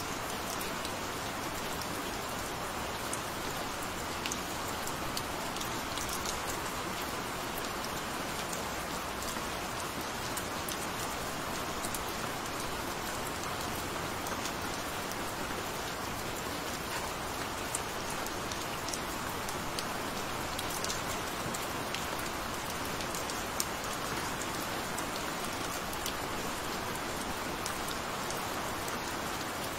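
Steady, even rain falling, with scattered individual drop ticks over the hiss.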